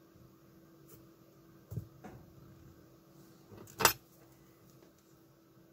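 Small handling noises on a soldering workbench as wires and tools are moved: a dull knock just under two seconds in and a sharp click about four seconds in, over a faint steady hum.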